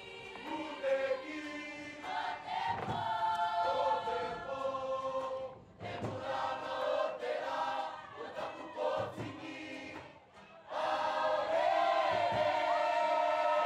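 A Cook Islands performing group singing in chorus, many voices together. The singing breaks off briefly twice, about halfway and again near 10 seconds in, then comes back louder and fuller.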